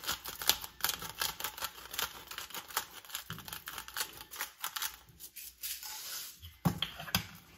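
Salt being added to vegetables laid on aluminium foil: a dense run of small dry clicks and ticks, with a few louder clicks near the end.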